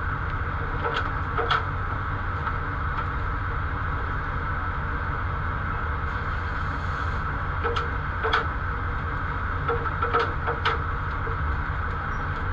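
A steady low engine rumble with a constant hum above it and scattered short clicks.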